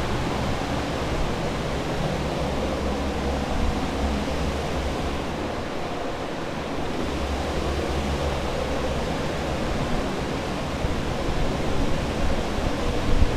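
Steady rushing air and low motor hum of restoration drying equipment, centrifugal air movers and dehumidifiers running to dry out a flooded building. The low hum dips for a couple of seconds about six seconds in, then returns.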